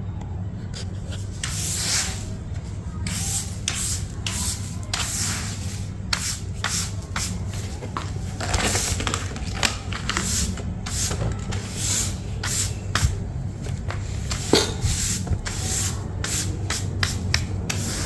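Repeated rubbing strokes against a surface, irregular, about one or two a second, over a steady low hum.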